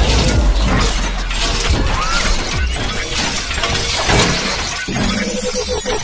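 Sound effects of an animated video intro: a loud run of crashing, shattering hits and noisy sweeps over music, with steady musical tones coming in near the end.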